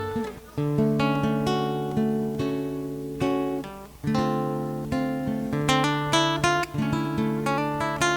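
Acoustic guitar strumming chords without singing, each chord ringing on before the next strum, with short breaks about half a second in and near the middle.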